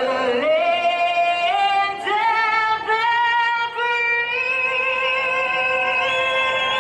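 A woman singing slow, sustained notes, stepping from one pitch to the next every second or so, then holding one long note from about four seconds in.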